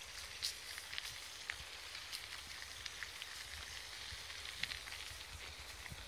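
Bicycle tyres rolling over a dirt and gravel forest track: a steady hiss full of small crackles and ticks from grit under the tyres, with a low rumble of wind on the microphone.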